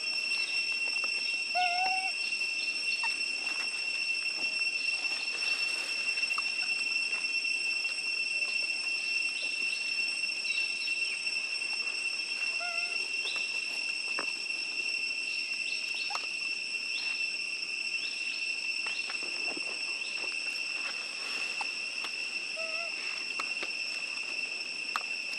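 Steady high-pitched insect drone in the woods, running unbroken. Over it, a few short pitched calls come about two seconds in, near the middle and near the end, along with faint rustling clicks.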